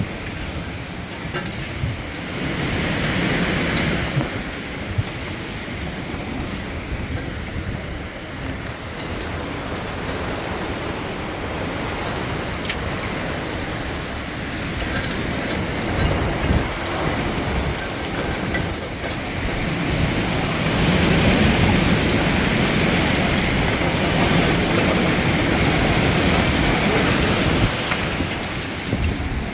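Hurricane-force wind and driving rain as one continuous rushing noise, swelling with gusts around three seconds in and again from about twenty seconds in until near the end. A few brief knocks are heard within it.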